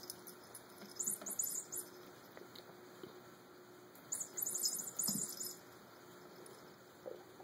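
A small cat toy hanging from a cat tree rattling and jingling in two bursts, about a second in and again around four seconds in, as a kitten bats at it, with a few soft knocks against the post.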